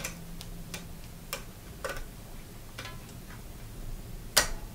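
Several light, scattered clicks of a bicycle V-brake's cable, noodle and brake arm being handled by hand while the cable is loosened, with the sharpest click near the end.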